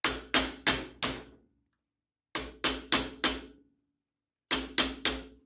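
Hammer blows driving a steel cross pin out of a Handyman farm jack's mechanism: three quick runs of four sharp metallic strikes each, every strike with a short ring.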